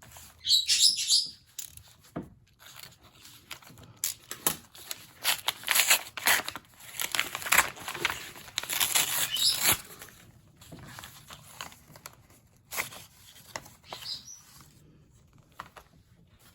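A small envelope being torn open and its contents handled by hand: irregular tearing and rustling of paper packaging, busiest in the middle few seconds and sparser toward the end.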